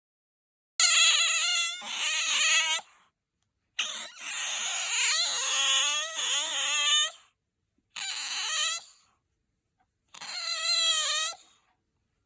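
Asian small-clawed otter making its squeaky, high-pitched call in four bouts of one to three seconds each, the pitch wavering within each bout, with short silent gaps between.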